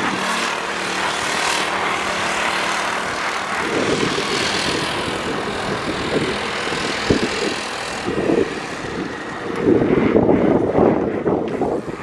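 Small go-kart engine running with a steady drone, while wind buffets the microphone in irregular low gusts from about four seconds in, strongest near the end.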